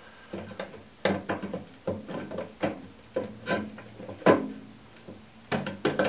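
Boiler circuit board on its plastic mount, with its connector blocks and wiring, clicking, knocking and rubbing against the boiler's casing as it is worked back into place by hand: an irregular run of sharp clicks, the loudest about a second in and again just past four seconds.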